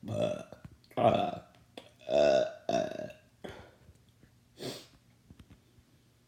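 A person burping: four long belches close together, then a fainter, shorter one.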